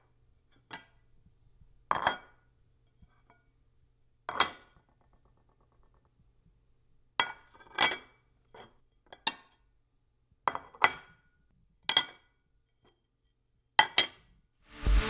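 Hard objects clinking together: about a dozen sharp clinks at uneven intervals, each with a short ring.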